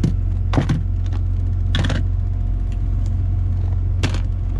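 Steady low rumble of the truck's idling diesel engine, with a few short knocks and clatters of food containers being handled.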